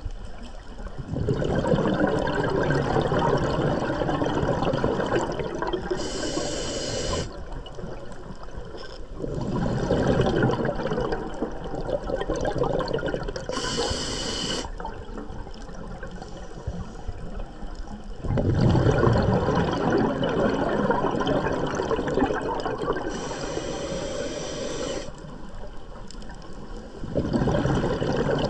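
Scuba diver breathing through a regulator underwater: long bubbling exhalations, each followed by a short hiss of air drawn through the regulator, three full breaths, one about every eight to nine seconds.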